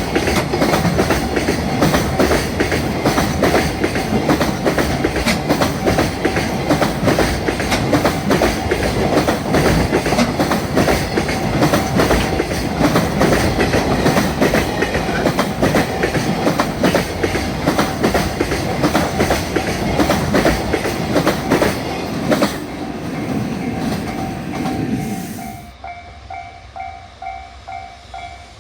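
Freight train passing at speed, its wheels clattering over the rail joints in a rapid run of clicks; the noise fades as the last wagon clears, about three quarters of the way through. Then the level crossing's warning bell is heard ringing in an even, repeating clang.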